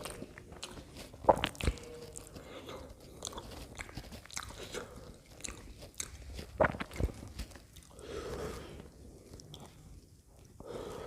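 Close-up eating sounds: a person biting and chewing pav bhaji, buttered bread rolls with mashed vegetable curry, with scattered wet mouth clicks and two louder sharp sounds, about a second and a half in and near seven seconds in.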